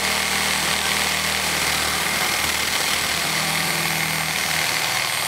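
Reciprocating saw cutting through an old steel water supply pipe, running steadily, with a steady high whine over the motor's hum.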